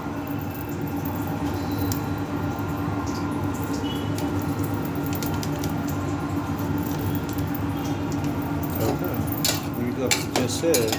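A steady low hum throughout, then a metal spoon clinking and scraping against a steel cooking pot a few times near the end as the potato and lentil curry is stirred.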